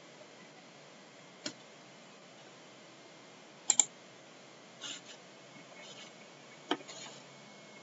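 Scattered soft computer mouse clicks, including a quick double click about four seconds in, over low room hiss.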